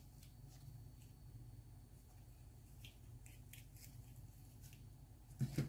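Faint clicks and light taps of hard plastic toy food pieces being handled and fitted together, with a louder knock near the end.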